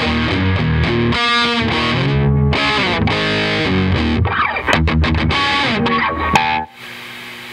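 Distorted electric guitar played through a Yamaha DG-60 112 combo amplifier during a play test after a service: runs of notes with some sliding pitches. The playing stops abruptly near the end, leaving the amp's steady hum and hiss.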